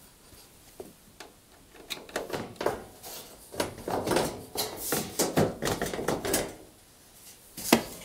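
Handling noises as a tumble dryer's side panel is worked loose with a screwdriver and lifted off: irregular scraping and rubbing, then a sharp knock near the end.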